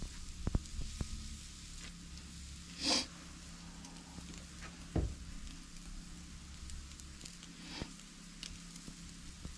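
Tomahawk steak sizzling on a charcoal grill grate over hot coals, with a short louder hiss about three seconds in. A few sharp clicks sound near the start and once about five seconds in.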